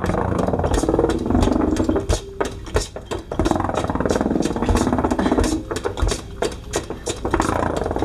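Children making improvised music: fast, irregular tapping over held, droning vocal sounds.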